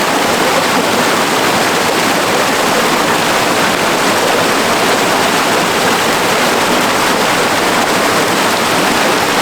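Stream water rushing steadily and loudly.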